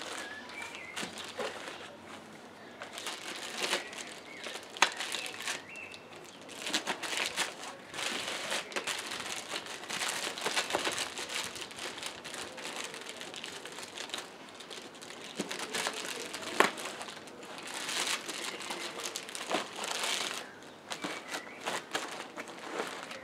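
Plastic bags crinkling and rustling as radio gear is handled and packed into a backpack, with a couple of sharp knocks as items are set down.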